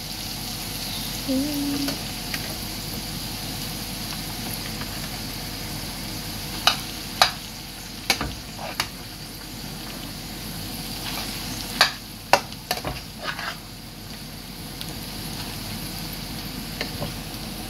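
Mixed vegetables sizzling steadily in a frying pan as cooked rice is ladled in and stirred, with a few sharp knocks of the metal ladle against the pans in the middle stretch.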